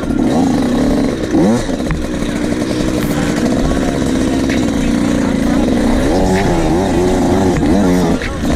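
Dirt bike engine heard from the rider's seat, revving up and down as it is ridden over rough trail, with a quick run of throttle swings about six to eight seconds in. Occasional short clatters of stones against the bike.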